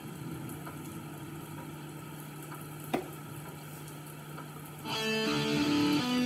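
Electric guitar: a low steady hum with a single sharp click about three seconds in, then picked notes begin about five seconds in, stepping from pitch to pitch.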